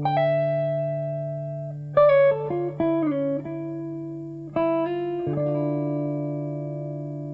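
Jazz guitar playing a slow, rubato intro: a chord struck and left to ring over a held low note, a quick run of plucked notes about two seconds in, then another ringing chord a little past halfway.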